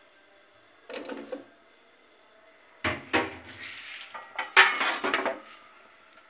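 Aluminium cooking pot and its lid clanking and knocking as the pot is covered. The sounds come in short clusters about a second in, about three seconds in, and again around four and a half to five seconds in, the last the loudest.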